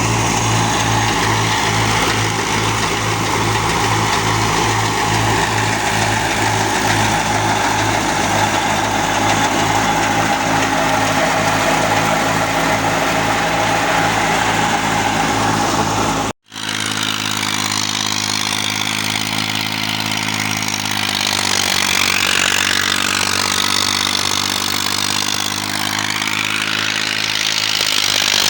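Tractor-driven wheat thresher running steadily, with the engine pulsing evenly under the machine's hum. A brief break just past halfway, after which the running sound carries on slightly changed.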